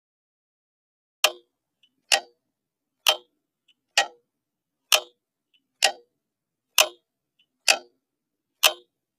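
Mechanical clock ticking steadily, about one sharp tick a second, starting about a second in.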